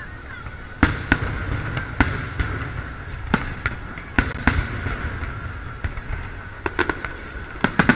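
Aerial firework shells bursting overhead: an irregular series of sharp bangs, a dozen or so, several in quick succession near the end.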